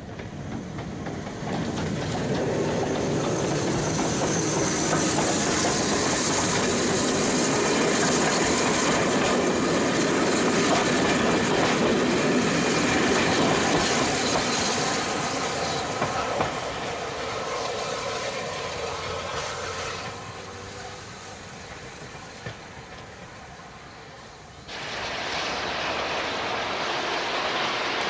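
Bulleid Light Pacific steam locomotive hauling a rake of DMU coaches past at speed, wheels clattering over the rail joints. It swells to its loudest as the coaches go by and fades as the train draws away. After an abrupt change near the end, a steadier sound of the train working in the distance.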